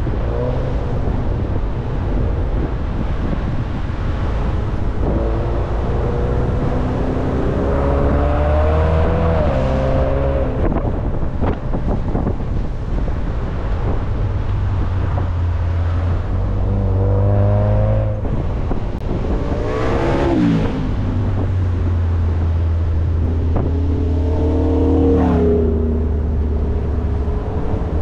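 Car engine accelerating and easing off along a winding road: its pitch climbs for several seconds and then drops away sharply, three times, over a steady low rumble from the road.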